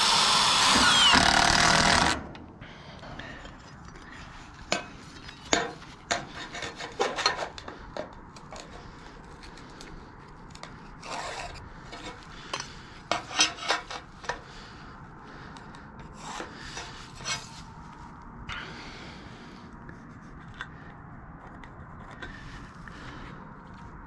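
Cordless drill-driver running for about two seconds at the start, driving a self-drilling roofing screw with a rubber washer into sheet-metal flashing. It stops abruptly and is followed by scattered light clicks, knocks and rubbing as a sheet of metal flashing is handled and marked with a pencil.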